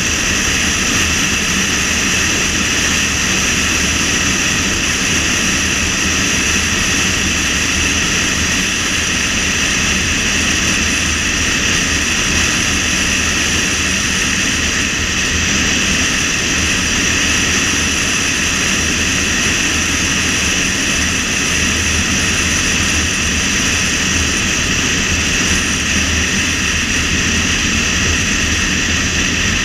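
Steady rush of wind and road noise from a car driving at speed, unchanging throughout.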